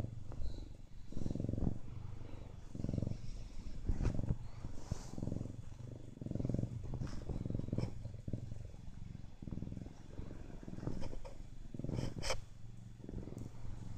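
Siamese cat purring close to the microphone, in repeated low swells about a second apart. A couple of short clicks or rubs come near the end.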